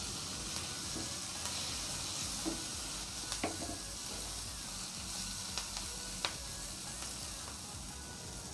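Drumstick leaves and shallots sautéing in oil in a frying pan: a steady sizzle, with a wooden spatula stirring and knocking against the pan a few times.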